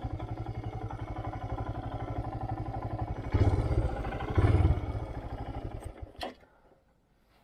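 Motorcycle engine running slowly with a rapid, even exhaust beat and two short louder surges about three and a half and four and a half seconds in, then it is switched off about six seconds in as the bike is parked. A single sharp click follows just after.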